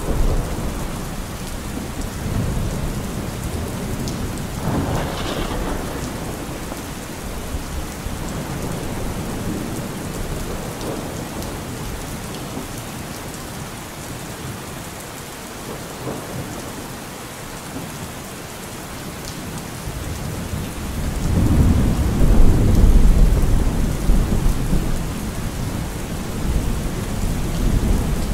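Steady rain with rolling thunder. The rumbles swell and fade, and the loudest comes about three quarters of the way through.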